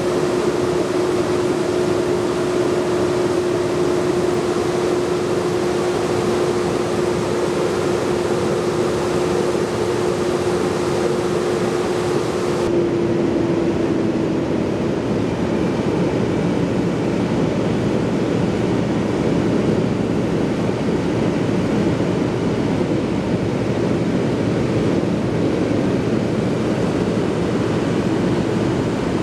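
Fire engine running with a steady hum under a constant rush of wind noise. About halfway through the sound changes abruptly, and the hum fades out soon after while the rushing noise carries on.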